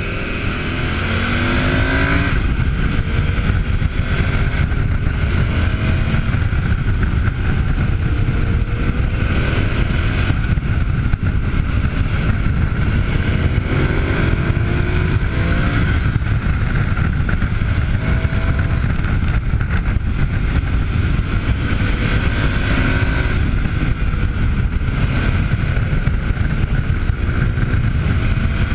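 KTM 990 Adventure's V-twin engine running hard on the road, its pitch rising repeatedly as it accelerates and dropping back between gear changes, under a heavy rush of wind and road noise.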